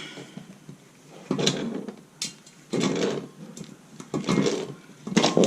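Metal wrenches clinking and scraping on the threaded fitting of a water-heater expansion tank as it is tightened down, in four short bursts.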